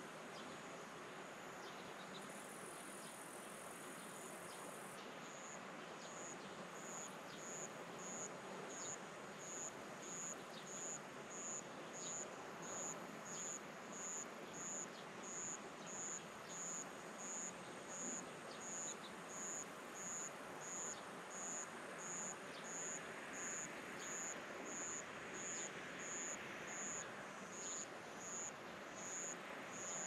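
An insect chirping in a steady rhythm, a high pulse about one and a half times a second that sets in about five seconds in, over quiet open-air ambience.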